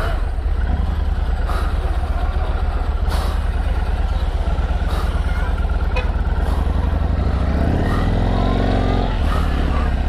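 Yamaha MT-01's 1670cc V-twin engine running as the bike rides off slowly in low gear, with a deep, steady, pulsing beat. Near the end the engine note rises and then falls once.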